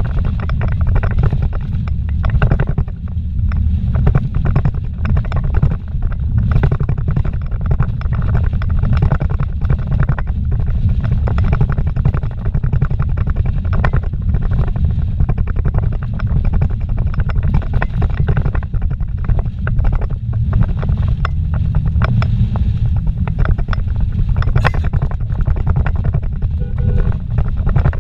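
Vehicle driving fast on a rough dirt road, heard from inside the cabin: a steady heavy low rumble of tyres and suspension, broken by frequent short knocks and rattles from the bumps.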